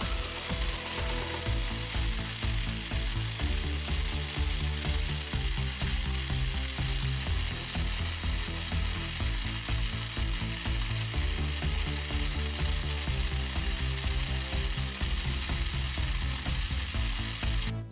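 Small electric motor driving the 3D-printed PLA drivetrain, running steadily with a whirring, rattling gear noise.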